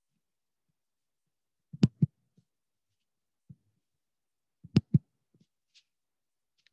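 Two pairs of sharp clicks about three seconds apart, each pair a quick double click, like a computer mouse button being clicked close to the microphone. A few faint ticks fall between them.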